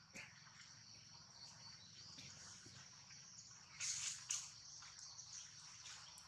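Steady high-pitched drone of insects in the surrounding forest, with two short noisy bursts about four seconds in.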